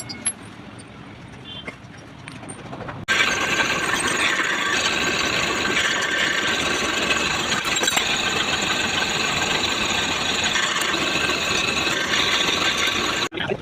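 Lathe running with a steady high whirring and several ringing high tones. It starts suddenly about three seconds in and stops abruptly near the end.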